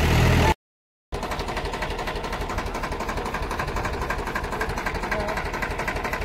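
Tractor diesel engine running loudly for the first half-second, then cut off by a brief gap of silence, after which it idles with a rapid, even chugging beat.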